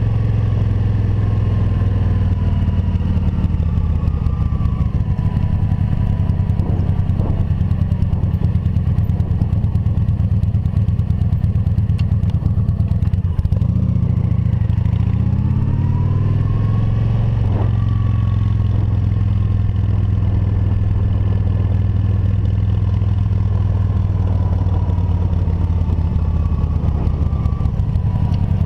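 Motorcycle engine running steadily under way. About halfway through the engine note dips and then climbs again.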